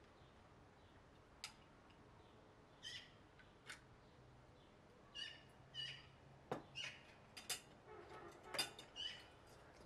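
Forks clicking against porcelain plates during a meal, alongside several short bird chirps that come more often in the second half.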